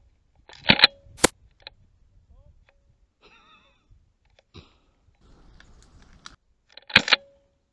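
Shots from a suppressed Tokyo Marui MK23 SOCOM gas airsoft pistol, heard as sharp pops. Two come close together about a second in and another near the end.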